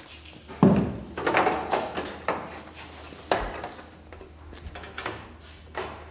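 Metal roof-window flashing parts being handled and fitted by hand: a heavy knock about half a second in, a stretch of rattling and scraping metal, another sharp knock a little after three seconds, then lighter clicks and taps.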